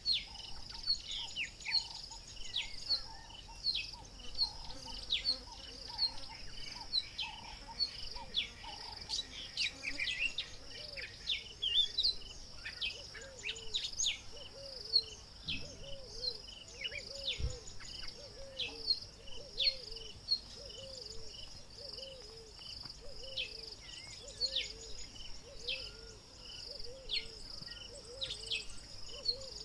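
Bush ambience: insects trilling steadily at a high pitch while birds give many short, quick chirps. From about halfway through, a low call repeats evenly, roughly once a second.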